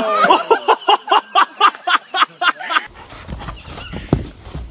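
A woman laughing in quick, loud, rhythmic bursts, cut off about three seconds in. Then a low rumble with a few dull thuds of a horse's hooves on sand.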